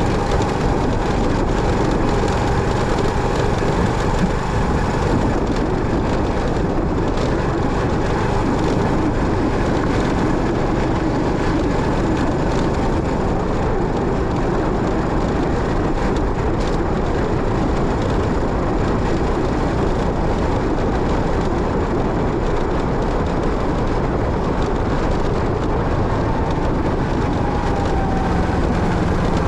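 Motorcycle on the move: a steady mix of engine, road and wind noise that stays even throughout, with a faint falling tone near the end.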